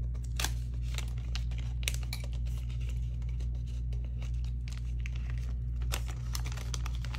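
Banknotes and cash envelopes rustling and crinkling as bills are handled and pushed into the envelopes: a run of short, irregular crackles over a steady low hum.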